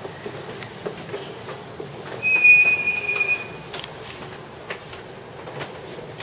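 A single steady high-pitched whistle tone, about a second and a half long, sounding a couple of seconds in, over faint scattered clicks.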